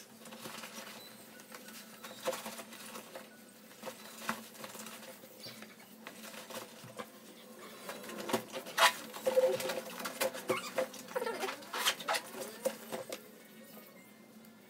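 Rustling, clicking and knocking of things being handled by hand, scattered taps that get busier and louder past the middle, over a faint steady room hum.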